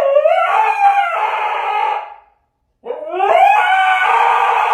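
A dog howling: two long howls, each rising at the start and then held, with a short pause between them.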